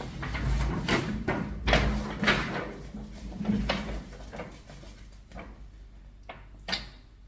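Cardboard album packaging and paper inserts being handled: a run of rustles and knocks in the first half, then quieter, with one sharp click near the end.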